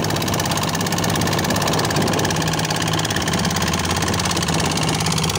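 A fishing boat's engine running steadily with a fast, even beat.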